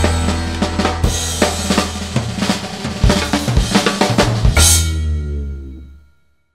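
Instrumental background music with a prominent drum kit, fading out over the last second and a half to silence.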